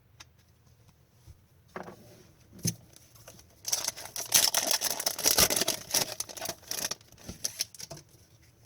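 Hockey trading cards and a foil pack wrapper being handled: a few single clicks, then about three seconds of dense crinkling and card-flicking in the middle.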